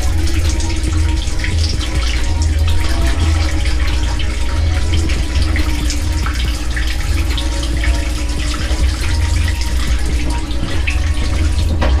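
Water running and splashing inside a Hoshizaki ice machine, over a steady low hum from its water circulation pump motor.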